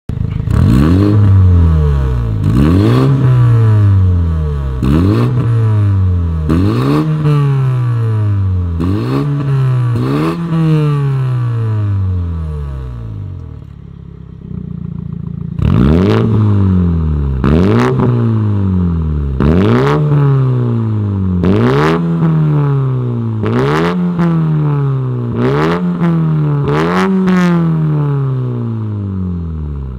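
BMW X2 F39 sDrive20i's B48 2.0-litre turbocharged four-cylinder engine revved repeatedly at standstill through a catless Fi Exhaust valvetronic system. Sharp throttle blips come about every two seconds, each rising fast and falling back. They come in two runs, with the engine dropping to a steady idle for a couple of seconds about halfway.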